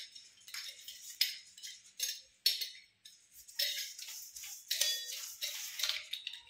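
Teflon thread-seal tape being wound round the threads of a brass tap fitting: a run of short, hissy rustles, roughly two a second, with a brief pause about three seconds in.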